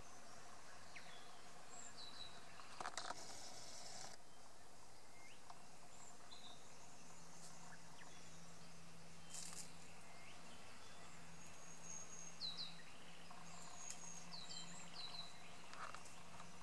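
Quiet bush ambience: small birds giving short falling chirps and high whistles now and then, with a brief rustle about three seconds in and a faint steady low hum from about seven seconds on.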